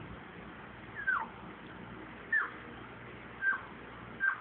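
Small white puppy whimpering: four short, high whines, each falling in pitch, about one a second.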